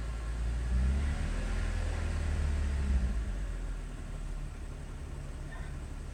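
BMW E90 330i's straight-six engine running, its note rising about a second in and easing back down after about three seconds, as if revved and let fall back to idle. This is the engine that makes a bad noise after a hard 30-minute drive.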